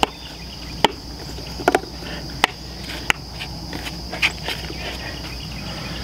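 Steady high chirring of insects, typical of crickets, with about half a dozen sharp clicks and knocks of plastic bell-waterer parts being handled and fitted together.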